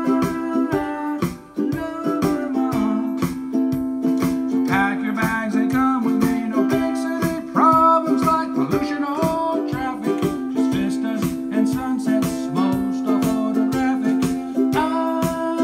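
A man singing while strumming a ukulele in a steady rhythm.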